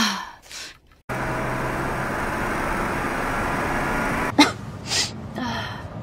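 A woman sneezing: one sharp voiced burst about four and a half seconds in, then two quieter breathy bursts, after a stretch of steady rushing background noise. The voiced tail of another sneeze fades out at the very start.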